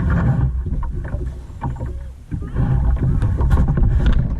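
Kayak on the water: a heavy, uneven low rumble on the microphone, with repeated knocks and splashes from paddling and handling.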